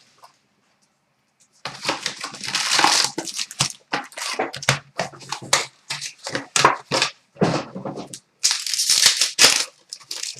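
Foil hockey-card pack wrappers being torn open and crinkled, with cards shuffled by hand, in quick irregular rustles that start after about a second and a half of quiet.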